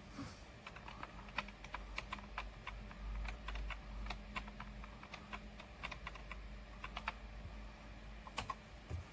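Typing on a computer keyboard: a run of irregular keystrokes, a few per second, with a couple of sharper clicks near the end, over a low steady hum.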